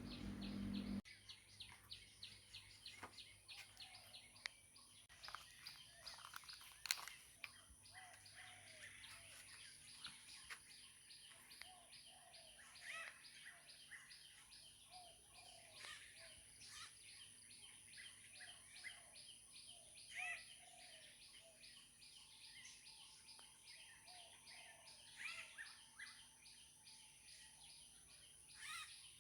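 Faint chirping of several birds: rapid, repeated high chirps throughout, with a series of short lower notes through the middle and a few sharp clicks.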